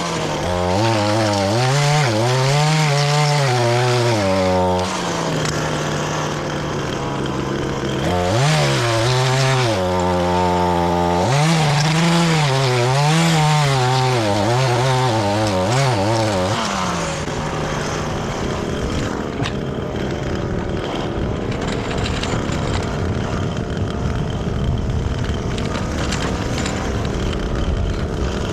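Echo PAS two-stroke powerhead with an edger attachment running. For the first half its pitch swings up and down again and again as the throttle is worked while edging. In the second half it settles into a steadier, rougher running sound.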